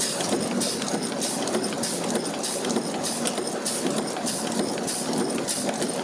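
40-ton stamping press running a progressive die, stamping brass strip into wire terminals with a regular stroke of about two to three a second over steady machine noise.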